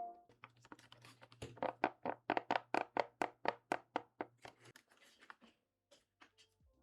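Typing on a Topre (HHKB) keyboard modded with silencing rings: a quick run of soft keystrokes, about four to five a second, thinning to a few scattered presses near the end.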